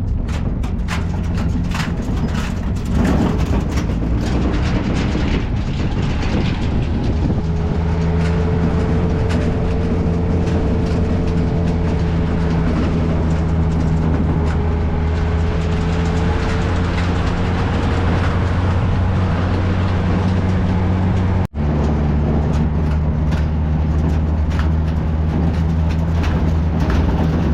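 An engine running steadily at an even speed, with frequent light knocks and rattles over it.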